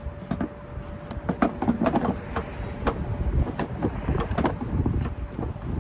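Hard plastic clicking and knocking as a 2007 Chevy Equinox's air filter box is worked and pushed into place: a string of irregular clicks and clunks over a low rumble.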